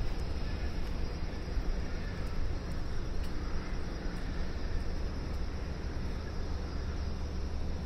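Steady city background noise, mostly a low rumble, with no distinct events standing out.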